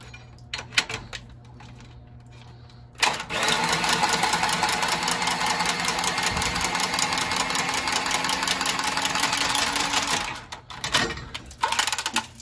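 Milwaukee cordless tubing cutter running as it cuts through a pipe: a steady motor whir that starts about three seconds in and stops about seven seconds later. A few light clicks and knocks come before and after it.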